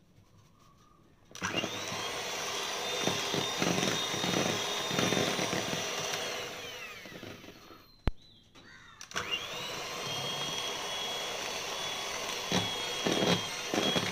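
Electric hand mixer beating semolina cake batter: it starts about a second in and runs with a steady high whine, winds down and stops around the middle, a single sharp knock in the pause, then it starts up again and runs on.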